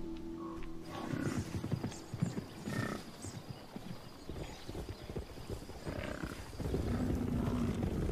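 Hooves of a running bison herd thudding on the ground in a fast, irregular drumming.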